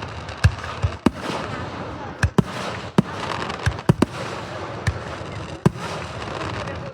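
Aerial fireworks going off: about ten sharp booms at uneven intervals, some in quick pairs, over a steady noisy background.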